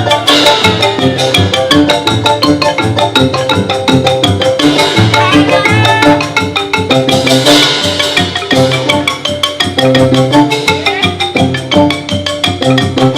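Music led by xylophone-like mallet percussion playing a fast, continuous stream of struck notes over a steady low accompaniment.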